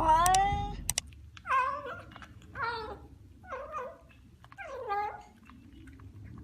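A domestic cat yowling: one drawn-out falling call, then about five short meowing cries, roughly one a second.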